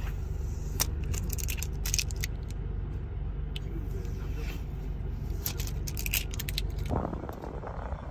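Protective plastic film being peeled off the steering-wheel button trim and air-vent trim of a new Kia Stinger, crackling in clusters about a second in and again around five to six seconds in. A steady low hum from the running car lies underneath.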